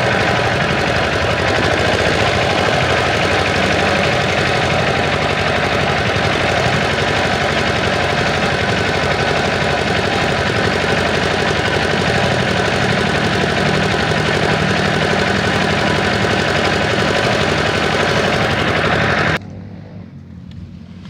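A small boat's motor running steadily and loudly. Near the end the loud running stops abruptly, leaving a much quieter low hum.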